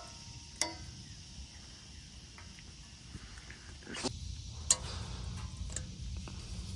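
New metal brake pad clips being pressed onto a caliper bracket: a few sharp metallic clicks and snaps, the loudest one about two-thirds of the way through. A steady high-pitched hiss runs behind them.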